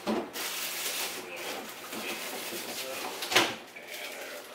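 Kitchen handling noise: someone rummaging at an open refrigerator, with a sharp knock about three and a half seconds in.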